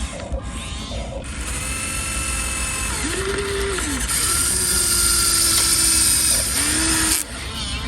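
Small electric motors and gearboxes of radio-controlled toy construction machines whining, their pitch rising and falling as each motion starts and stops. A higher hiss grows stronger from about four seconds in and cuts off suddenly about seven seconds in.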